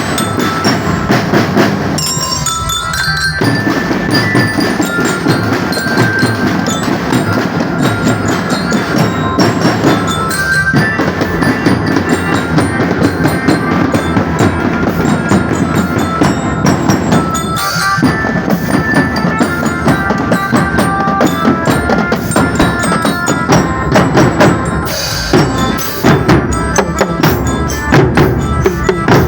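Drum band playing an upbeat tune: marching drums and bass drum keep a driving beat under a bright melody on bell lyra (glockenspiel-style mallet bells). The drums drop out briefly a few times while the melody carries on.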